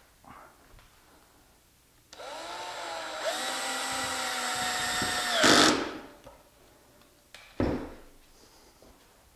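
Cordless drill with a long driver bit driving a pocket-hole screw into a 2x2 wood frame joint. The motor whine starts about two seconds in, steps up in speed once partway, and ends with a louder burst before stopping. A single knock follows about two seconds later.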